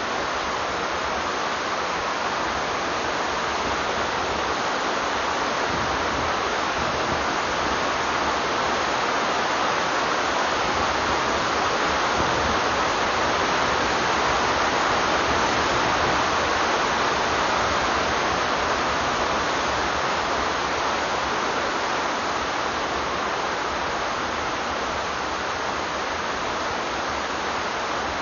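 White-water river rapids rushing, a steady dense wash of water noise.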